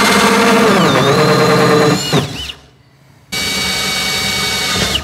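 Cordless Ridgid drill turning a hole saw through the plastic wall of a toolbox. The motor whine sags in pitch under load about a second in, winds down and stops near the middle, then starts again and runs steadily.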